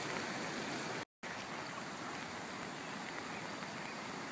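Steady rushing of a rain-swollen creek running high in flood, broken by a short cut-out about a second in.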